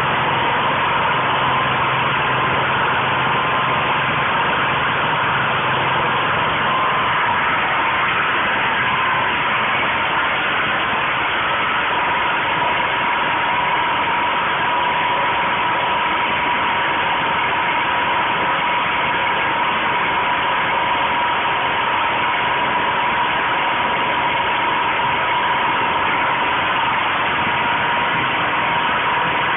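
Portable generator's 5.5 hp GX160-type single-cylinder four-stroke engine running steadily, with an even whine over the engine note.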